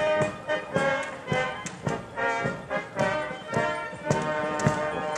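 Band music with sustained notes over a steady drum beat, a little under two beats a second, at march tempo.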